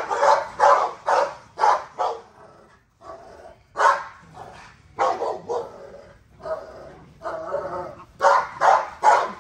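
A dog barking over and over in runs of short barks, about three a second, with a brief lull a couple of seconds in.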